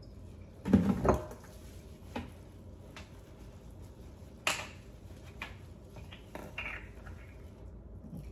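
Kitchen items being handled: a few scattered knocks and clatters, the loudest a double knock about a second in and a sharp click about four and a half seconds in.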